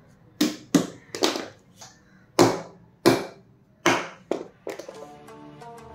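A series of about nine sharp, irregular knocks and clacks as the metal stator assembly of an e-bike hub motor is handled and set against a wooden workbench. Faint background music runs underneath.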